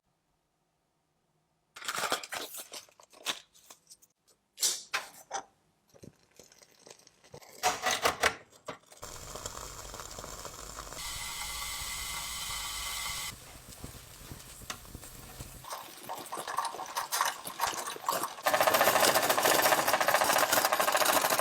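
A series of sharp knocks and clicks, then a small motor running steadily, and in the last few seconds a loud steady rubbing noise.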